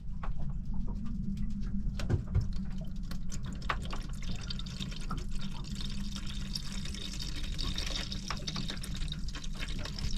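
Old engine coolant draining in a thin stream from a boat's inboard engine into a plastic bowl, trickling and splashing steadily, over a steady low hum.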